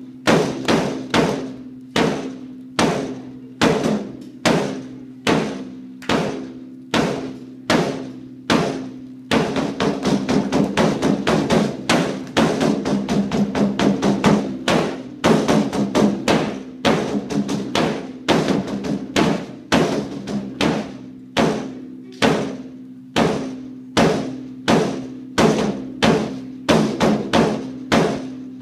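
A drum beaten in a steady beat of about two strokes a second, each stroke ringing on with a low tone. From about nine seconds in, the strokes come faster and denser for some thirteen seconds, then the even beat returns. It is the beat of a school fight song.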